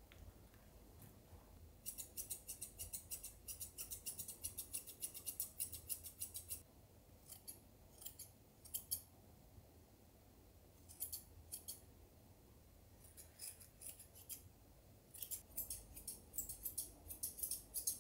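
Grooming scissors snipping a small dog's fur, in quick runs of snips with short pauses between them.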